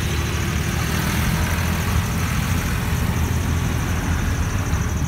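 Battered chilli bajji frying in a kadai of hot oil, a steady hiss and sizzle over a constant low rumble.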